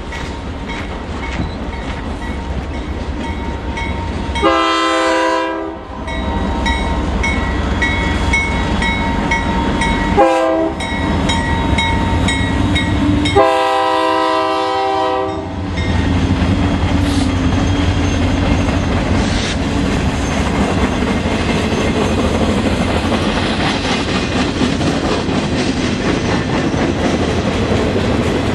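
Union Pacific freight train cars rolling past with a steady rumble, while a diesel locomotive horn sounds three blasts: a long one, a short one, then a longer one.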